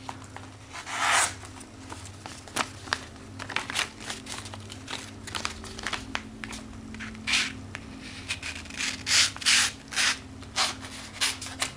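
A sharp knife blade slicing through a sheet of paper in a series of short, quick strokes of dry hiss, shaving strips off the edge as a sharpness test.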